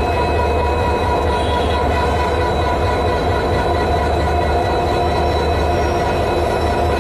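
EMD diesel locomotive running steadily: a low, even engine drone with several steady high tones over it.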